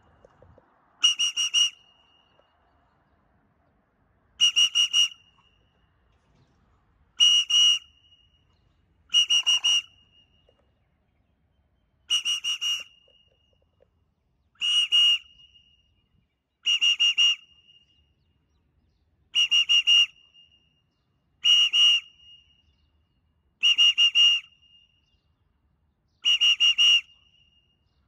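A handheld whistle blown in short bursts of three or four quick toots, about eleven times, roughly every two to three seconds. It is a recall signal to call a free-flying pet bird home.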